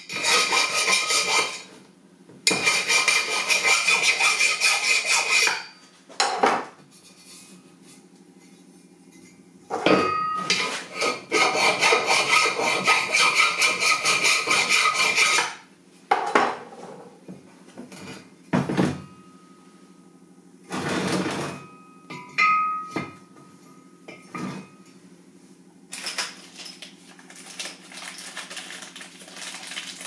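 Hand file scraping back and forth on a square steel tube bracket, in three runs of quick strokes. Shorter metallic clinks and knocks from steel parts set down on the workbench come after.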